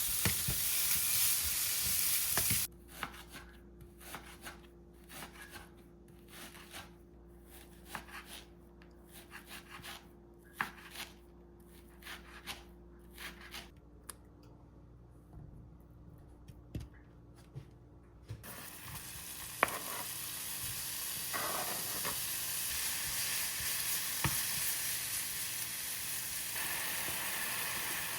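Food sizzling in a frying pan, cutting off suddenly after a couple of seconds to a quieter stretch of scattered utensil clicks and taps over a steady low hum, then sizzling again from a little past the middle to the end.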